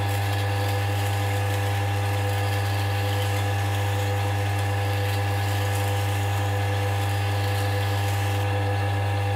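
Scheppach DP18 Vario bench drill press running at low speed, a steady electric motor hum with a few constant higher tones, as its Morse taper arbor is sanded clean with emery paper. The sound cuts off suddenly near the end.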